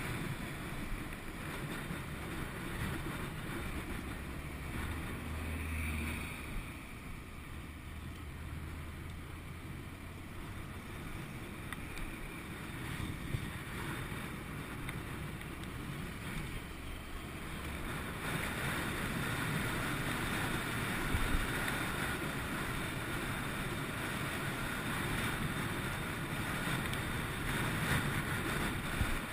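Wind rushing over a helmet-mounted camera on a moving motorcycle, a 2011 Honda VFR800 VTEC, with a low steady engine hum underneath. The rush grows louder about two-thirds of the way through.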